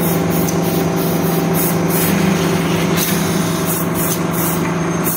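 CNC wood-turning lathe running: a steady machine hum with a strong low tone, with short high hisses repeating a few times a second.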